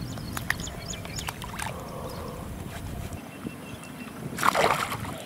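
Low rumble with light rustling, then about four and a half seconds in one short splash in the pond water.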